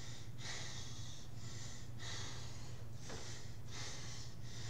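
A man breathing hard in and out as he lies on the floor, winded from a set of floor exercises. A steady low hum runs underneath.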